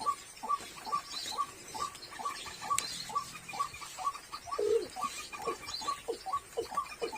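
A rapid, regular series of short chirping calls, about two and a half a second, each falling in pitch, with one sharp click a little before the middle.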